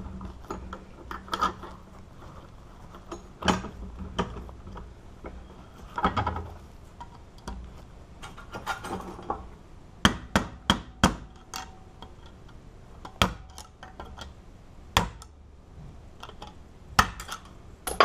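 Sharp metallic knocks and clinks of hand tools struck and prying against a cut-open Master Lock padlock body held in a steel bench vise, driving its lock cylinder out. The knocks come singly every second or two, with a quick run of about five near the middle.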